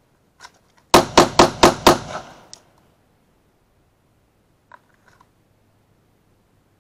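Glock 20 10mm pistol fired five times in a fast string, about four shots a second, starting about a second in, each shot with a short echo trailing off. A few faint clicks follow later.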